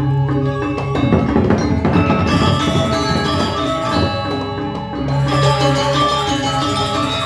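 Balinese gamelan playing the accompaniment for a topeng keras masked dance: bronze metallophones ring in quick rhythmic figures. A noisy stretch of clashing percussion comes about a second in, and a low held tone sounds near the start and again about five seconds in.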